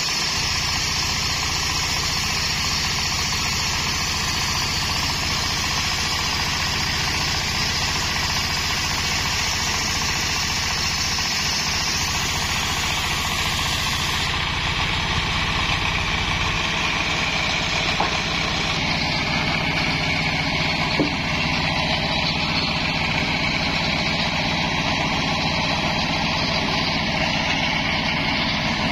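Stationary diesel engine running steadily, driving a homemade circular sawmill cutting coconut palm wood. Two short knocks come near the end.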